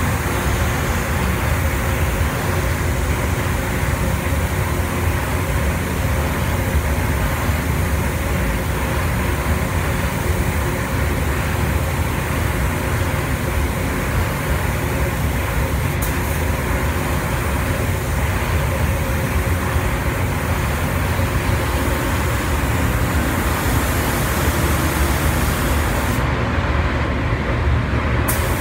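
Spray-gun painting in a spray booth: a steady rush of air with a strong low rumble and the high hiss of the spray gun atomizing paint. The high hiss cuts out for about two seconds near the end while the rumble carries on.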